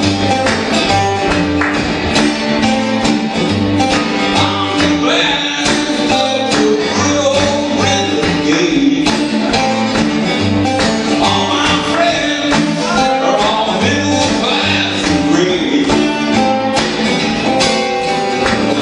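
Two acoustic guitars played together live, strummed in a steady rhythm.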